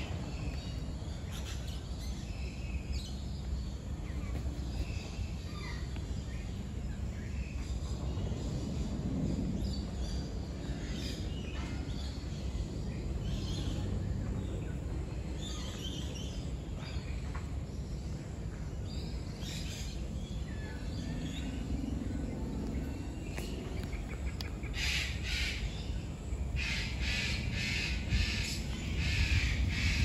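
Bird-park ambience: a steady low background rumble with scattered short bird calls, then from about 25 seconds in a run of loud, harsh, repeated bird calls.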